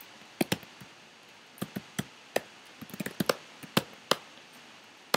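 Keystrokes on a computer keyboard: about fifteen irregular sharp clicks, bunching into a quick run about three seconds in.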